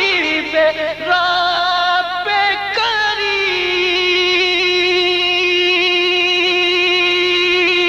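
A man's voice singing a naat without words, a drawn-out melodic run that settles about three seconds in on one long held note with a slight waver.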